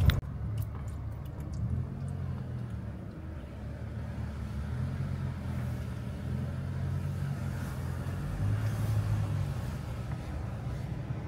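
A Mazda car running at low speed over a rough, rocky dirt trail: a steady low engine and road drone that swells and eases a little, with a few faint ticks in the first couple of seconds.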